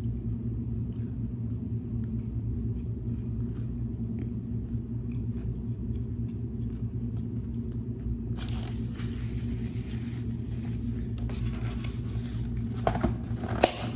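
Steady low mechanical hum. About eight seconds in a steady hiss joins it, and a few small clicks and rustles come near the end.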